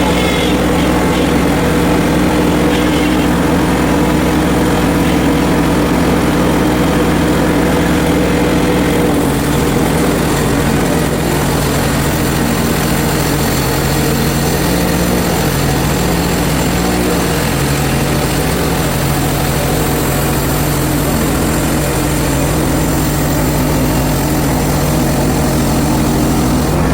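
Portable bandsaw mill's gas engine running steadily, its note dropping a little about nine seconds in and holding there.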